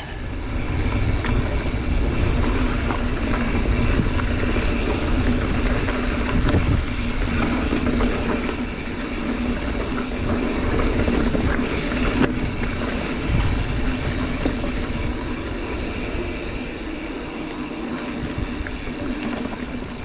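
Mountain bike rolling along a dirt trail: wind rush on the bike-mounted or body-worn microphone over rolling tyre noise, with a steady hum.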